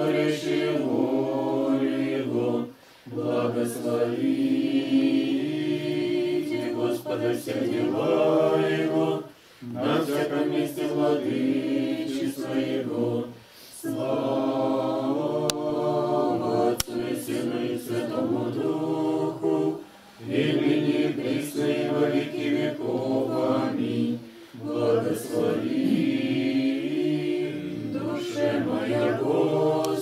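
Unaccompanied Orthodox liturgical chant sung in Church Slavonic by a small group of voices, in phrases of a few seconds each broken by short pauses for breath.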